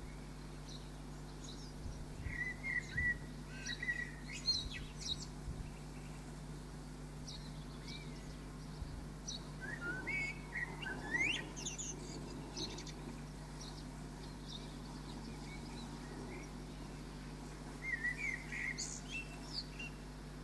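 Small birds chirping and warbling in short high bursts, a few seconds in, again around the middle, and near the end, over a steady low hum.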